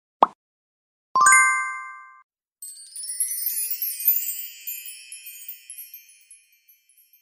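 Added editing sound effects: a short plop, then a bright bell ding about a second in, followed by a few seconds of high twinkling chime sparkles that fade away.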